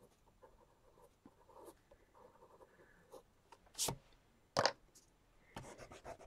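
Pencil sketching on sketchbook paper in soft scratchy strokes. About four seconds in come two brief loud scuffs, and near the end a rubber eraser rubs back and forth over the paper.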